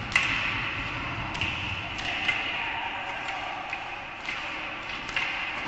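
Ice hockey play on the rink: skate blades scraping the ice under sharp clacks of sticks and puck, the loudest just after the start and several more spread through, echoing in a large arena.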